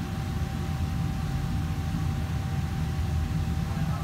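Steady low mechanical hum with a thin steady tone above it: the constant drone of running machinery such as fans or refrigeration.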